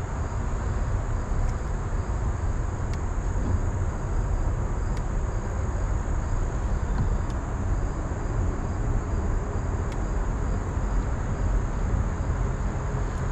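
Steady rushing noise of river current over rocks, with a steady high-pitched insect buzz above it and a few faint clicks.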